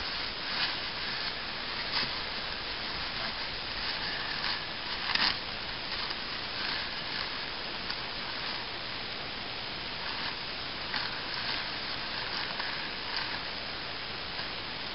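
Steady hiss with scattered short crinkles of a paper sandwich wrapper and plastic bag being handled.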